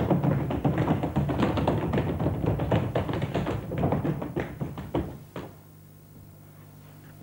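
Fast, dense percussive rhythm of taps with music, accompanying an Ethiopian stage dance; it breaks off suddenly a little over five seconds in, leaving only a faint low steady hum.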